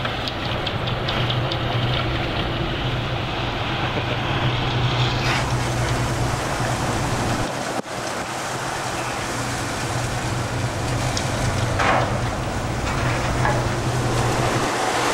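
A fishing boat's engine running with a steady low hum under rushing wind and sea noise, broken briefly about halfway through.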